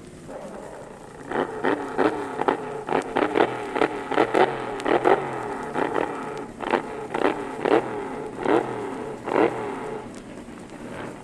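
Drag-racing car engine blipped over and over, quick sharp revs about two a second that space out after a few seconds, running lower between them.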